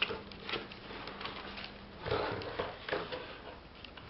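A computer keyboard and its packaging being handled: a few light knocks and soft rustles, the largest about two seconds in.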